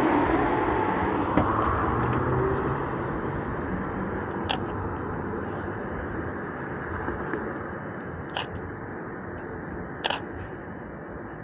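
Canon EOS 60D DSLR shutter clicking three times, single short clicks a few seconds apart, over steady street traffic noise that gradually fades.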